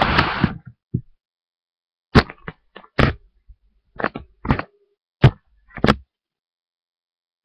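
Handling noise close to the microphone: a brief rustle at the start, then about six sharp knocks and bumps, most of a second or so apart, as things are moved and set down right by the webcam.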